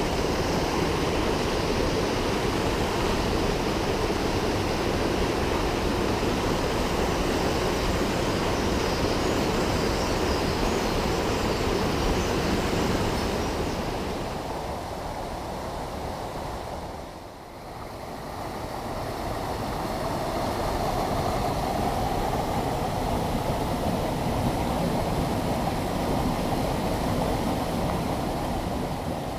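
Mountain headwater stream rushing over rocks, a steady wash of water. It fades briefly a little past halfway and comes back.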